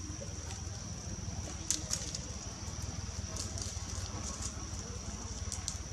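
Dry leaves and twigs crackling, with scattered sharp snaps, the loudest a little under two seconds in, as monkeys clamber in low branches over leaf litter. A steady high whine and a low rumble run underneath.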